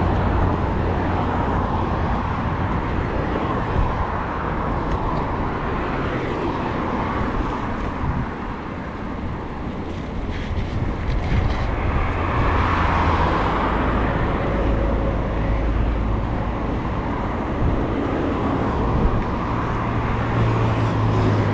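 Steady rumbling wind and road noise on a bicycle-mounted camera while riding, with traffic in the mix.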